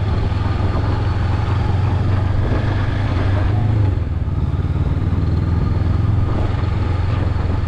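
Honda CB500X's parallel-twin engine running steadily as the motorcycle rides off, with a strong, even low note.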